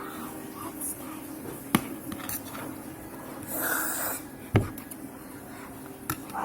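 Eating noises over a plate of pansit kanton noodles: a utensil clicks sharply against the dish twice, with a short slurp in between.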